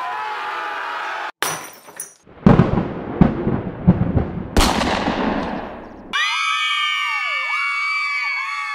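Scissors cutting and tearing packing tape on a cardboard box: several stretches of ripping and crackling, broken by short gaps. About six seconds in, it switches abruptly to many overlapping pitched tones sliding up and down.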